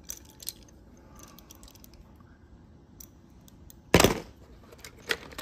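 Hard fishing lures and hooks clicking and clattering as they are handled in a tackle box, with a few light clicks at first and a louder clatter about four seconds in.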